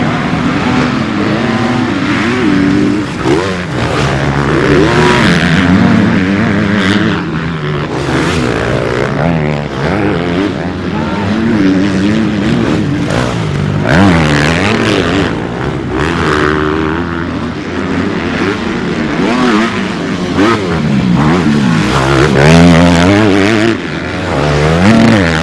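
Motocross bike engines revving hard as several dirt bikes race through the corners, the pitch rising and falling over and over with throttle and gear changes.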